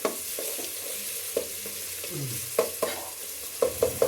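Chopped tomatoes frying in hot oil with a steady sizzle, while a spoon stirs them and knocks against the pan in quick bursts of clicks, stopping for a moment about halfway through. The tomatoes are being cooked until they go soft.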